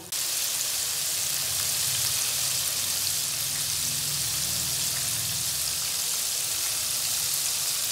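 Flour-coated chicken pieces deep-frying in a pan of hot oil on a low flame: a steady, dense sizzle of bubbling oil.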